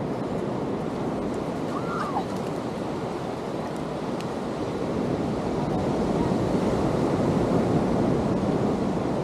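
Ocean surf washing on a beach, a steady rush of breaking waves that swells louder in the second half.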